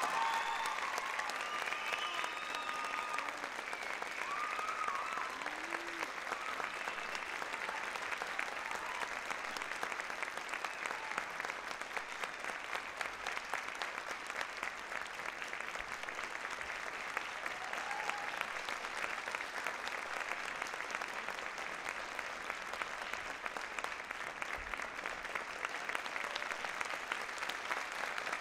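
Audience applauding steadily after a ballet performance ends, with a few voices calling out over the clapping in the first few seconds.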